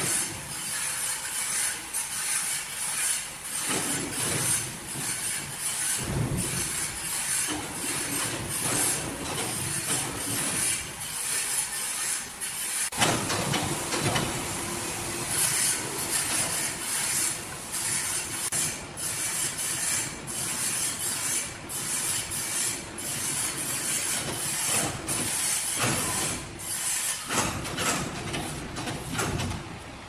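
Sawmill machinery running with a steady hiss and rumble, broken by frequent clanks and knocks; the low rumble grows louder about six seconds in and again about thirteen seconds in.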